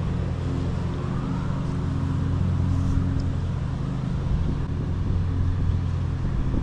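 A steady, low engine hum that holds an even pitch throughout.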